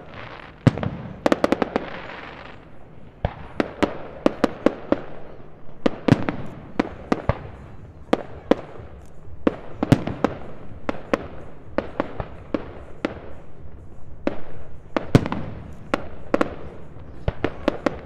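Fireworks display: aerial shells bursting in an irregular run of many sharp bangs, some coming in quick clusters.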